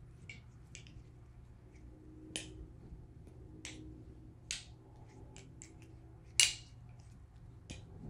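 Nabalis Morse channel-aluminium balisong being flipped: light, scattered clicks and taps as the handles swing around the blade and meet, the loudest about six and a half seconds in.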